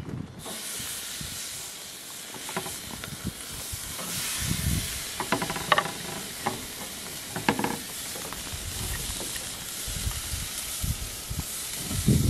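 Burger patties sizzling on a gas barbecue grill: a steady hiss, with a few short clicks midway and a dull thump near the end.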